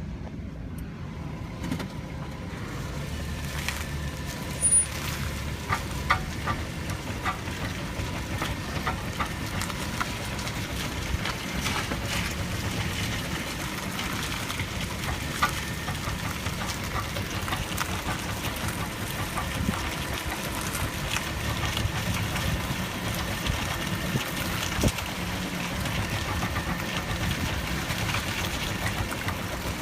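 2002 VW Touareg running slowly with its wheels turned: a steady low engine and drivetrain rumble, broken by irregular knocks, a few louder than the rest. The knocking comes with the whole car skipping and shaking, and its owner suspects a CV joint, the transfer case or its stepper motor, or the centre carrier bearing.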